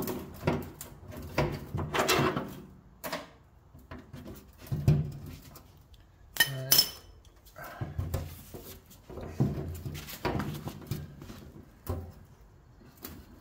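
Irregular metal knocks, clinks and scrapes of a Jeep CJ7's fender and its fasteners being worked loose by hand, with two sharp clinks about six and a half seconds in.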